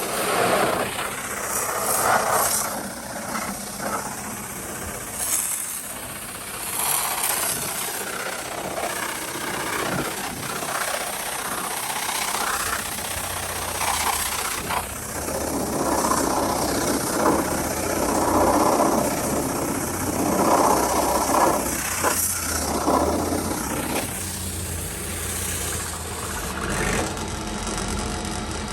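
Mi-T-M 3000 PSI electric pressure washer, on 460-volt three-phase power, running with water spraying from its wand; the noise swells and eases, and a steady low hum comes in about halfway through.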